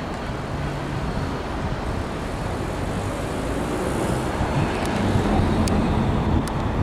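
Class 69 diesel-electric locomotive hauling coaches slowly toward the listener, its engine rumble growing louder as it nears, with a few light clicks in the second half.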